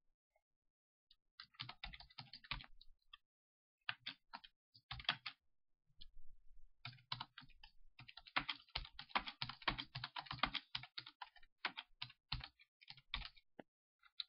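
Typing on a computer keyboard in bursts of keystrokes: a short flurry about a second in, another around four seconds in, then a long run of rapid typing from about seven seconds until near the end.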